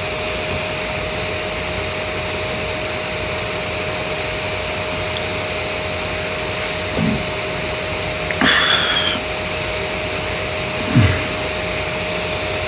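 Steady whirring noise with a faint constant hum tone, with a short louder hiss about eight and a half seconds in.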